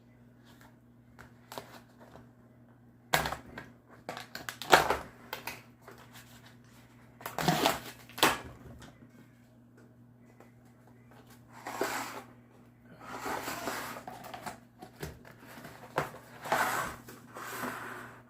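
A Pringles can being opened and handled: a run of separate clicks, crinkles and scrapes from the tube, its lid and foil seal, and the stacked chips. The loudest clusters come about 3, 5, 8, 12 to 14 and 17 seconds in.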